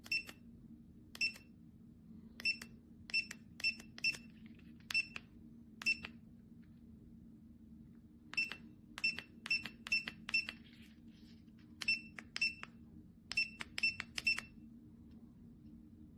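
Short, high electronic beeps from a self-levelling laser level, about twenty at uneven intervals, some in quick runs, over a faint steady hum.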